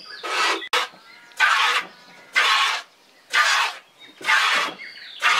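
Milk squirting from a cow's teats into a plastic jug as the cow is milked by hand, about one squirt a second.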